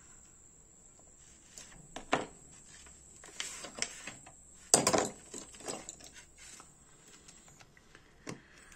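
Scattered small metallic clicks and scrapes as a Dupont L1 lighter and its parts are handled and worked with a small screwdriver, the sharpest click about five seconds in.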